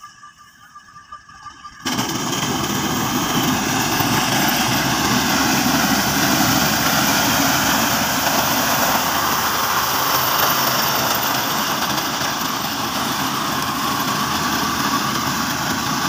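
Fiat 480 tractor's diesel engine running steadily with its front-mounted wheat reaper cutting the standing crop. The sound comes in abruptly about two seconds in and stays loud and even.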